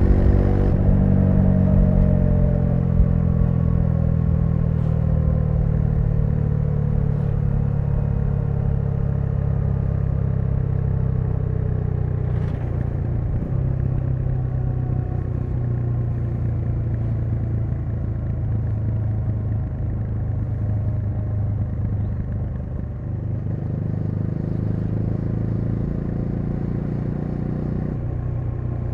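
Bajaj Dominar 400's single-cylinder engine running under way. The revs fall over the first few seconds, then hold low and fairly steady, with a few faint clicks along the way.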